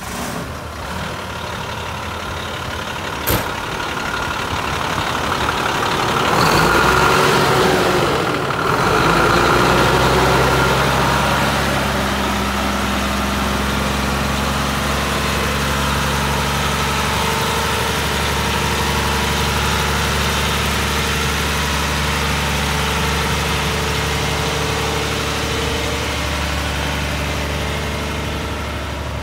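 Ford L9000 dump truck's diesel engine running, louder for a few seconds about six to nine seconds in, then settling into a steady idle.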